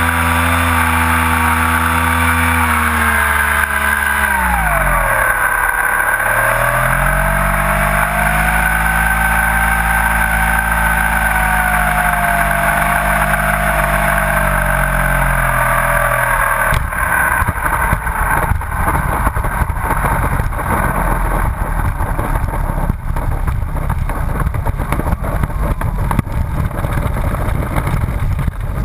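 Onboard sound of a radio-controlled T-28 Trojan model airplane: the motor and propeller drone steadily, drop in pitch about four seconds in as the throttle comes back for landing, then run low. From about seventeen seconds the landing gear rolls and rattles on the asphalt runway.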